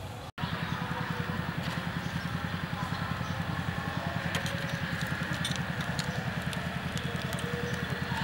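A small engine running steadily with a fast, even beat, cutting in abruptly just after the start, with faint scattered crackles above it.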